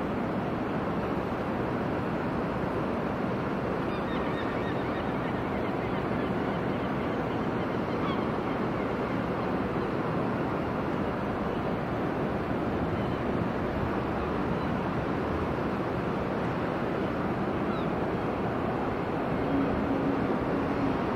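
Steady city ambience of distant traffic heard from a rooftop, an even wash of noise, with a brief steady low tone near the end.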